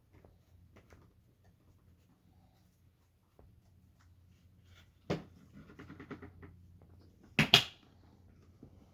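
Hard plastic knocks and clatter from a Dirt Devil upright's dust canister being handled and emptied. One sharp knock comes about five seconds in, then rattling, and two loud knocks in quick succession near the end.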